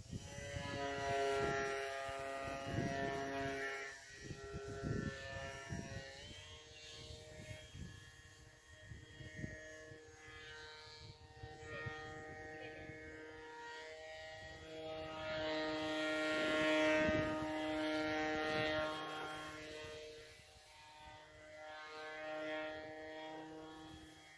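Small 2205-size brushless motor and trimmed 6-inch propeller of a foamboard RC 3D plane buzzing in flight, its pitch rising and falling as the throttle changes, loudest about two-thirds of the way through. Gusts of breeze rumble on the microphone underneath.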